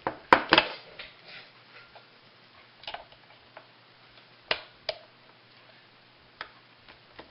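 Pliers working the snap ring and washer off a Honda ATC 110 recoil starter. About half a dozen sharp, irregular metal clicks and taps, with quiet in between.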